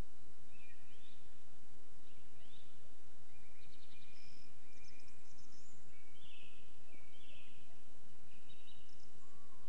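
Several songbirds singing in the early pre-dawn chorus: short rising sweeps, quick trills and brief high notes, following one another throughout, over a steady background noise.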